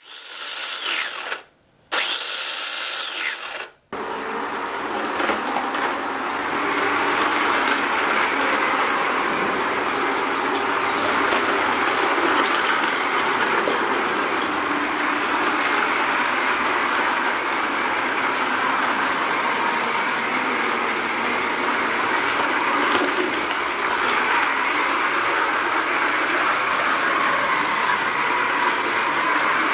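Two brief high swooshes in the first few seconds, then a small DC-motor-driven cardboard model train running on a cardboard track, giving a steady whirring rattle.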